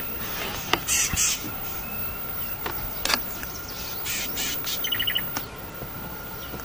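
Wild birds calling: harsh, noisy calls about a second in and again about four seconds in, and a quick run of short high notes about five seconds in. A few sharp clicks in between.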